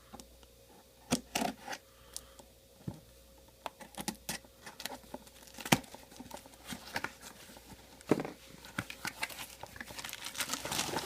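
Packaging rustling and crinkling, with scattered light clicks and knocks as boxed parts are handled and unwrapped, growing busier near the end.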